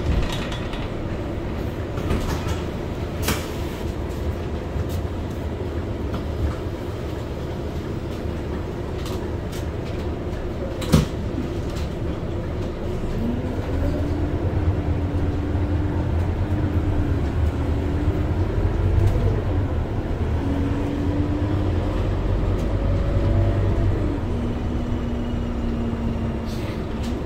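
Scania K230UB city bus heard from inside near the front, its five-cylinder diesel running at idle at the stop with a couple of sharp clicks. About halfway through it pulls away: the engine grows louder and a whine rises and drops in steps as the bus accelerates.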